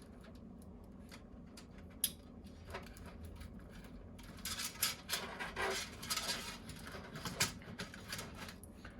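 Small clicks and rustling from PC case cables and plastic connectors being handled and plugged in: a sharp click about two seconds in, then a busier stretch of clicking and rustling between about four and a half and seven and a half seconds in.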